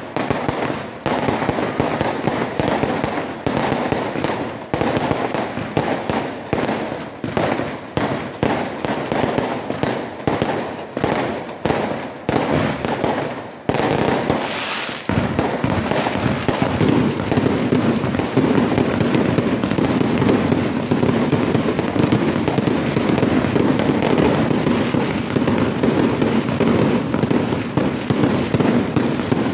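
Aerial firework shells bursting in rapid succession: a quick string of separate sharp bangs for about the first half, then, about halfway through, the bursts run together into a dense continuous barrage that is louder still.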